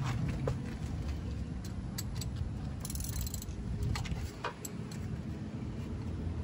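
A few sharp metal clicks and clinks as a ratchet and 14 mm socket are worked onto the front brake caliper bolts of a 2003 Lincoln Town Car, over a steady low rumble.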